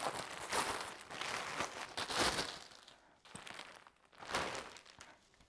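Plastic packaging crinkling and rustling as a plastic-wrapped rug is pulled out of a poly mailer bag and handled, busiest over the first two or three seconds, then two short rustles.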